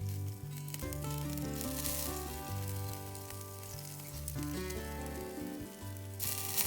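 Background music with a steady bass line, over a sizzling hiss that swells about two seconds in and again near the end.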